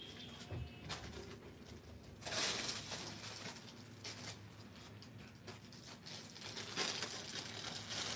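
Lawn suit fabric and a printed catalogue card rustling and crinkling as they are handled and moved about, loudest about two seconds in and again near the end, with a few light clicks.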